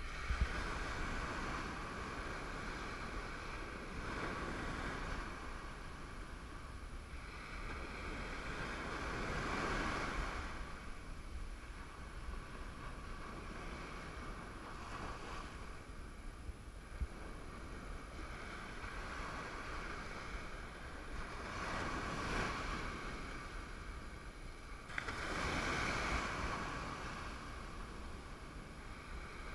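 Ocean surf breaking and washing up a sandy beach, swelling and fading every few seconds, with wind rumbling on the microphone.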